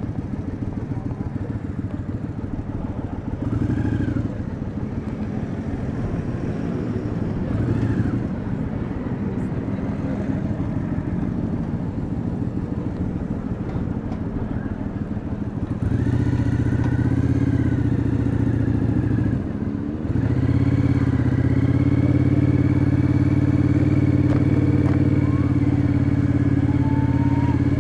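Cruiser motorcycle engine heard from the rider's seat with wind noise while riding slowly, with two short revs about four and eight seconds in. From a little past halfway the engine settles into a steady, even idle while stopped in traffic, with a brief break about twenty seconds in.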